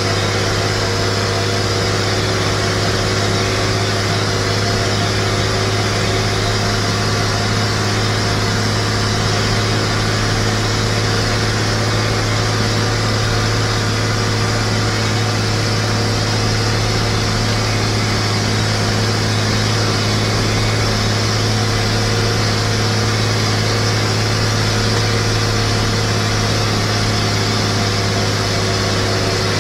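International Harvester 1255 tractor's six-cylinder diesel engine running steadily at road speed, heard from the driver's seat: a constant low drone with road and wind noise over it, unchanging throughout.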